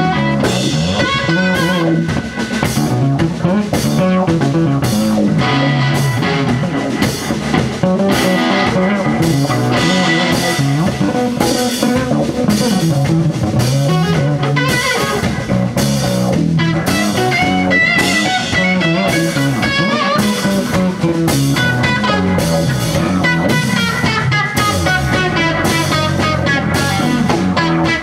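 Live rock band playing an instrumental passage: electric guitar over bass guitar and drum kit.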